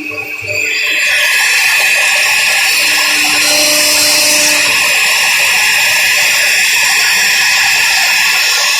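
CNC router spindle running and cutting wood: a steady high whine with cutting noise that gets louder about a second in.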